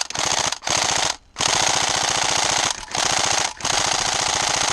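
Tokyo Marui SCAR-L airsoft electric rifle firing on full auto in about five long bursts, its rapid, even rattle broken by brief pauses between bursts.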